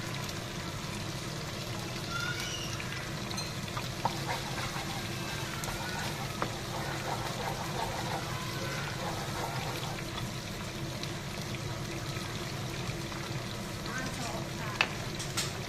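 Thick sweet-and-sour sauce simmering and bubbling in a wok over a gas flame, as a steady hiss, with a few light taps of a wooden spatula against the pan.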